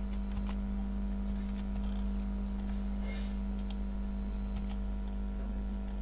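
A steady electrical hum and background noise from the recording setup, with a few faint clicks from a mouse and keyboard in use.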